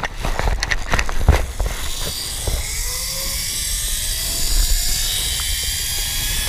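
Zip-line trolley pulleys rolling along the steel cable: a steady whirring hiss that rises slightly in pitch, with wind buffeting the microphone. A few clicks and knocks of the harness and lanyard hardware come in the first second or so.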